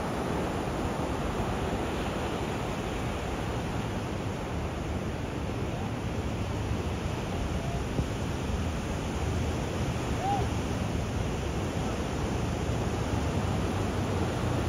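Ocean surf breaking on a sandy beach, a steady rush of waves.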